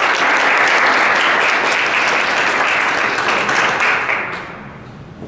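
Audience applauding, fading out about four and a half seconds in.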